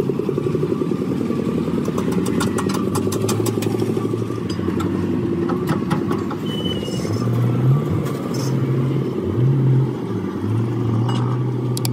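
A motor vehicle engine running with a steady low rattle, its pitch rising and falling several times in the second half as it revs. A few sharp clicks sound over it.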